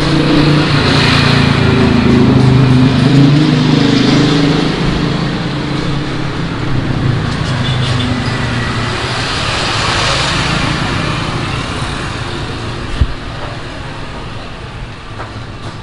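A motor vehicle's engine running close by, loudest in the first few seconds and then fading as it passes, with one sharp knock near the end.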